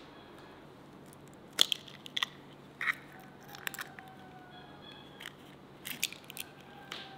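Eggshells being cracked and broken open over an earthenware bowl of flour: a scattered series of sharp cracks and crunches of shell over several seconds.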